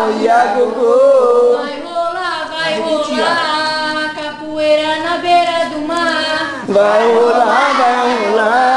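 Voices singing a capoeira song, with a short break about two-thirds of the way through before the singing starts again.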